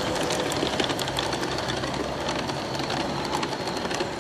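G-scale model train, a Taurus electric locomotive and four passenger cars, running past on garden railway track: a steady whir from the drive with many irregular sharp clicks as the wheels cross the rail joints.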